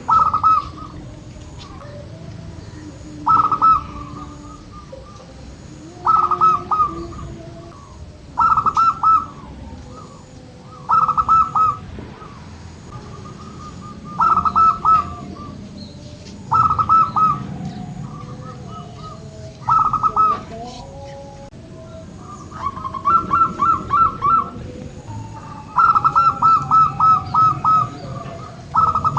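Zebra dove (perkutut) singing: a short burst of quick cooing notes roughly every two and a half seconds, with longer runs of notes near the end. Other small birds chirp faintly in the background.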